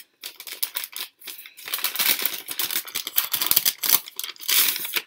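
Gift wrapping paper crinkling and tearing as a wrapped book is torn open by hand: a dense run of crackles and rips with brief pauses in the first second.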